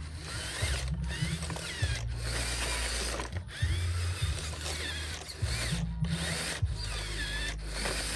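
Small electric gear motors of radio-controlled construction models running in short spells, a geared whine with ratcheting clatter whose pitch and level change every second or two as the motors start and stop.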